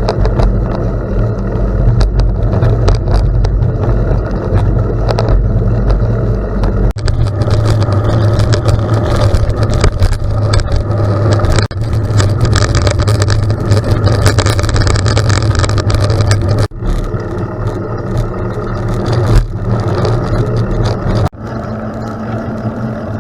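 Loud, steady low rumble of road and wind noise while travelling at speed, with several abrupt jumps in the sound.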